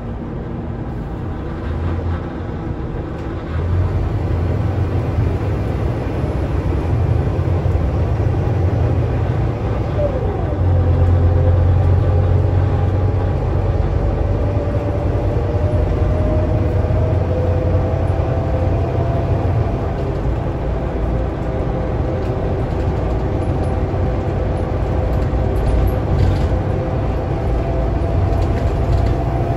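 Scania K320UA articulated bus driving, heard from inside the passenger cabin: a deep engine rumble that swells about 4 s in and again about 10 s in as the bus pulls harder. Through the second half a thin whine climbs slowly in pitch over the rumble.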